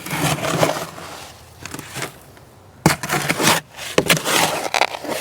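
Wet concrete being scraped and shoved along in a mixing container with a hand tool, in three rough scraping strokes.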